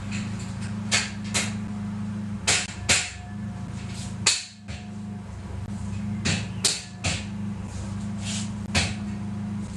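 A hammer knocking on something: about ten short, sharp knocks, mostly in pairs a fraction of a second apart, with gaps of one to two seconds between groups. A steady low hum runs underneath.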